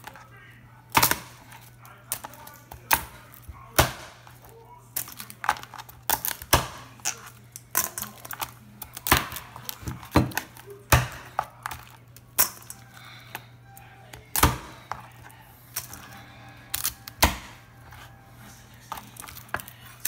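Large kitchen knife chopping raw blue crabs on a plastic cutting board: irregular sharp chops and cracks as the blade goes through shell onto the board, one every half second to second.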